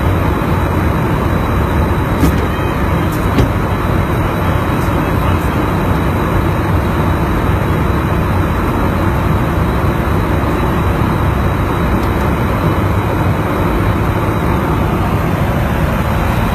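Loud, steady roar of aircraft in flight, engine and rushing air together, heaviest in the low end and unchanging, with a couple of faint ticks early on.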